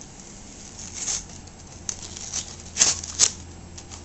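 Product packaging being handled and pulled open: scattered rustles and clicks, loudest as a pair near three seconds in.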